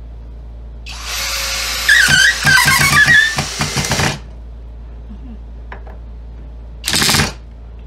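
Skil 20V brushless drill/driver driving a 3-inch wood screw into a wooden log. The motor runs for about three seconds, getting louder under load with irregular clicks and a wavering tone as the screw goes in. A second short burst of the drill comes near the end.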